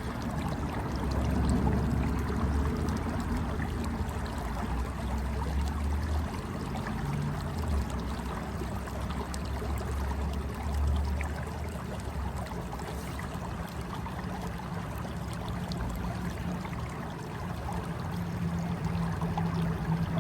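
Flowing river water: a steady rushing wash with a low rumble that swells and fades.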